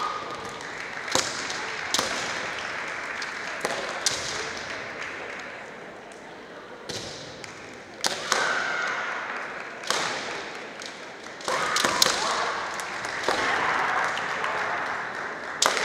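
Kendo fighting: repeated sharp cracks of bamboo shinai striking each other and the armour, with drawn-out kiai shouts from the fighters.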